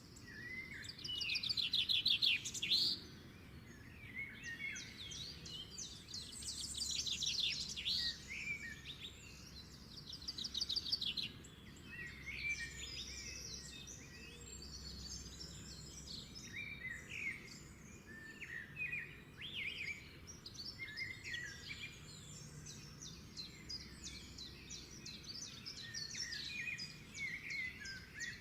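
Several birds chirping and singing, with fast trills and short rising and falling calls, busiest and loudest in the first third, over a faint steady background hum.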